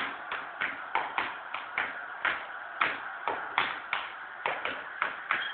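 Hard-soled shoes tapping on a wooden floor as a child steps and dances, sharp taps about three or four a second, unevenly spaced.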